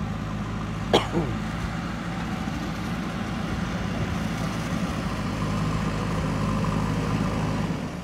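JCB 3DX backhoe loader's diesel engine running steadily as the machine drives along the bank, with one sharp knock about a second in.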